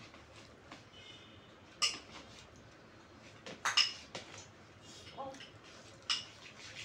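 Metal spoon clinking against glass and ceramic bowls while food is served out: a few sharp, ringing clinks. The loudest are about two seconds in and a close pair just before four seconds.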